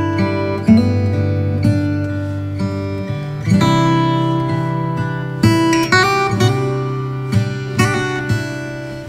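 Background music: acoustic guitar playing plucked and strummed chords, a new chord sounding about once a second.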